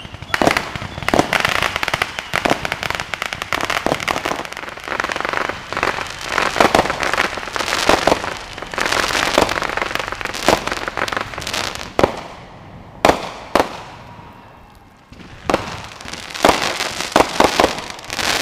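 Aerial fireworks going off: a dense run of rapid pops and crackles, thinning out about two-thirds of the way through to a few single sharp bangs, then crackling densely again near the end.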